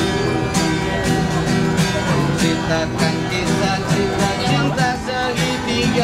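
Acoustic guitar strummed in a steady rhythm while a man sings, his voice clearest near the end.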